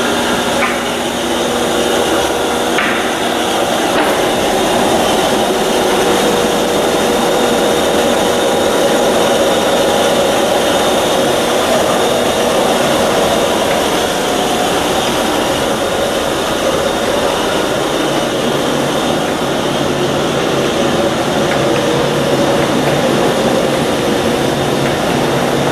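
Monarch 46-inch engine lathe running under power, its 30-horsepower main motor and geared headstock giving a loud, steady mechanical running noise.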